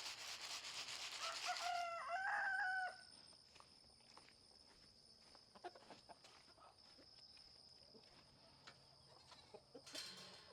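A rooster crows once over the rattling hiss of chicken feed being shaken out and scattering on the ground. The hiss then stops, leaving a steady high tone in the background with scattered soft clicks and short chicken calls, before the feed rattles again near the end.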